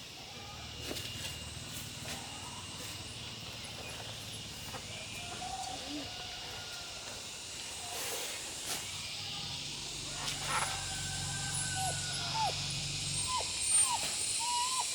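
Rural outdoor ambience: a steady high-pitched insect drone with scattered short animal chirps and calls, and a low rumble in the middle.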